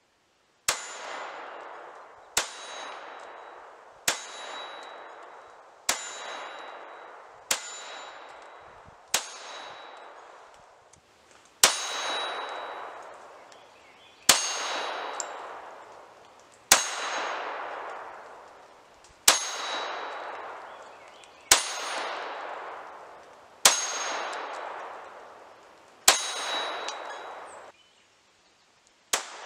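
Beretta Model 81 .32 ACP (7.65 mm) pistol fired single shots at a slow, steady pace, about fourteen shots roughly two seconds apart. Each crack has a short high ring and a long echoing tail that fades before the next shot.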